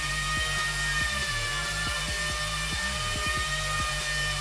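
Background music: a repeating low bass line that steps and slides in pitch, under a few sustained high tones.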